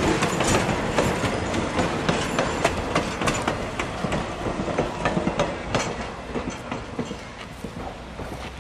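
Passenger coach wheels clattering over the rail joints as the end of a train rolls past, the clickety-clack fading away as it goes.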